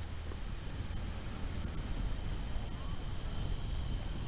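Steady high-pitched insect drone from the surrounding bush, with a low rumble of wind on the microphone underneath.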